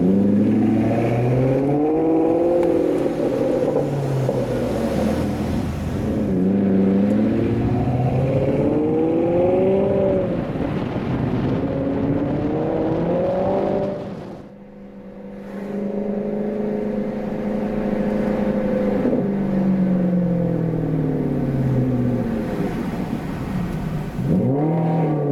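Maserati Quattroporte Sport GTS V8 exhaust accelerating hard through the gears, its pitch climbing and dropping with each shift. About halfway through it goes quiet for a moment, then holds a steady note, falls in pitch as the car slows, and revs up again near the end. The recording has some crackling distortion.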